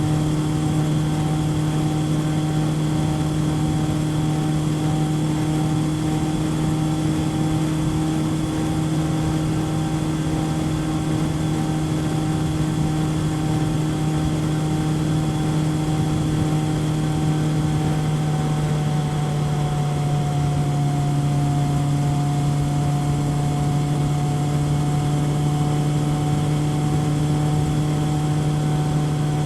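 Kawasaki ZRX 1100's inline-four engine breathing through a Yoshimura exhaust, running at a steady engine speed under an even rush of noise. The engine note drops slightly about two-thirds of the way in, then holds steady again.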